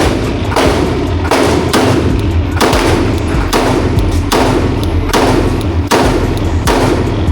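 Series of 9mm Glock pistol shots, about one a second and roughly ten in all, each with a long echoing tail, over background music with a steady bass.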